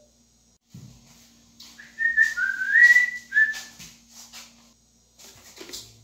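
A person whistling a short phrase of four or five notes that dips and then rises, lasting under two seconds, with a few sharp clicks around it.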